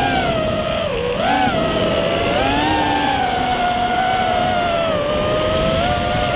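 FPV quadcopter's motors and propellers whining, the pitch rising and falling with the throttle and dipping sharply about a second in.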